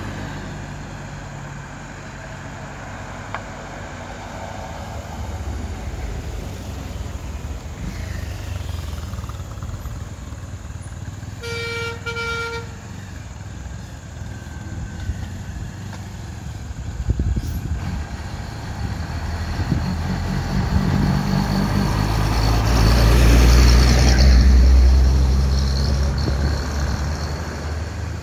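Vehicle engines running and passing on the road, a van, tuk-tuks and a motorcycle among them. A horn sounds once, briefly, about halfway through. Later an engine swells to its loudest as a vehicle passes close, then eases off.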